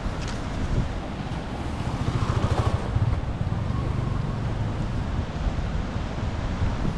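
Wind buffeting the microphone over the wash of ocean surf, a steady low rumble that swells about two to three seconds in.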